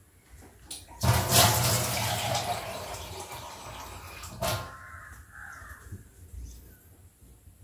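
Water running from a tap into a vessel: it starts suddenly about a second in, is loudest at first and then tapers off, and ends with a sharp knock about four and a half seconds in.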